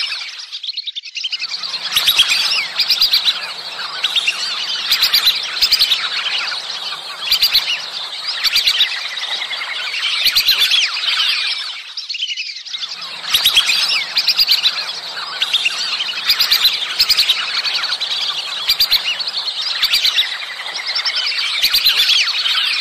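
A flock of whistling ducks calling: dense, high twittering whistles that continue throughout, with a short gap about a second in and another about twelve seconds in.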